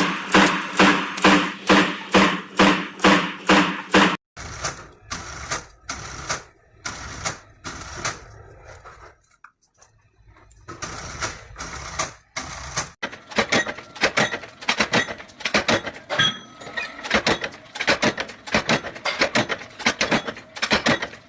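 Production machinery clattering in rhythmic strokes, changing abruptly to a different machine about four seconds in and again near the middle; the last part is fast, dense clicking.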